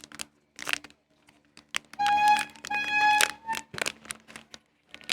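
Handling clicks and packaging rustles, then an electronic chime: two held beeps of the same pitch about two seconds in, followed by a short, slightly higher beep.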